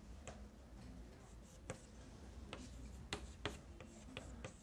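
Chalk tapping on a blackboard while numbers are written: about half a dozen faint, irregular taps.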